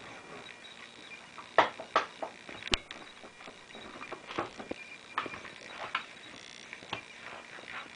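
Irregular light knocks and clicks from a wooden accordion reed-block assembly being handled, lifted and turned over, with a cluster of sharper knocks about two seconds in and scattered ones after.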